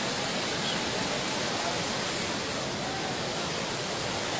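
Floodwater rushing with a steady, even noise.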